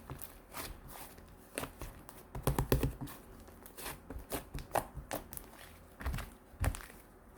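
Hands squishing and pressing slime, making irregular sticky clicks and crackling pops, with clusters of denser squelches and soft thuds twice.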